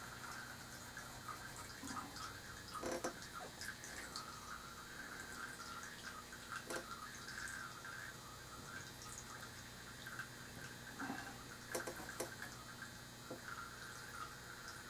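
Faint, scattered taps and soft scrapes of a paintbrush working thick paint onto a painting board, over a steady electrical hum.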